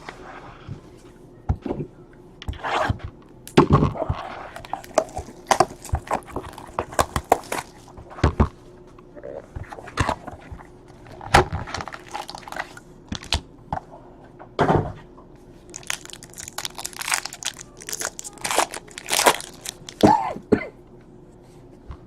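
Trading card pack wrappers crinkling and tearing open as cards are handled and flipped through: a long run of irregular crackles and sharp clicks, busiest about three-quarters of the way in.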